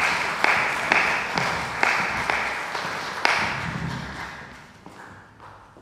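Audience applause, with sharper claps falling about twice a second, fading away over the last couple of seconds.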